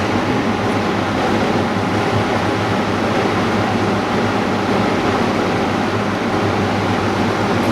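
Steady machine noise: a broad, even hiss over a low, steady hum.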